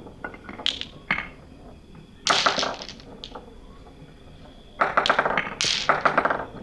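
Glass marbles clacking and rattling through a wooden Cuboro marble run. There are a few single sharp clicks in the first half, then three rattling runs of quick clicks, one near the middle and two in quick succession near the end, over a steady wash of sea waves.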